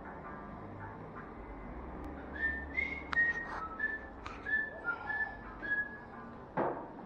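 A whistled tune: a run of short, clear notes that step between a few pitches, starting about two seconds in, with a few sharp clicks among them. A low thump near the end.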